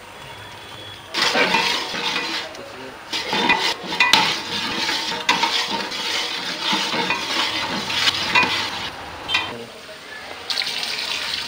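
Long metal ladle stirring and scraping chicken korma in a large metal pot, with frequent clicks and knocks of metal on metal, over the sizzle of the curry cooking in its oil. The stirring starts about a second in, pauses briefly near the end, then starts again.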